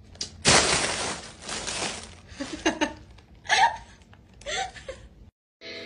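Plastic bag and snack wrappers crinkling loudly as a cat rummages in them, followed by a few short voice-like sounds.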